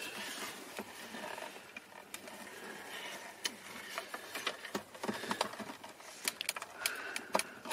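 Plastic clicks and scrapes from handling a BMW E36's heater/ventilation control panel while working its plastic wiring connector loose, with a quick run of sharp clicks near the end.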